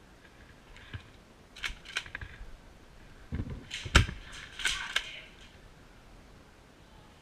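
Scattered sharp clicks and snaps of airsoft gunfire: single shots about one and two seconds in, then a quick cluster with the loudest crack about four seconds in.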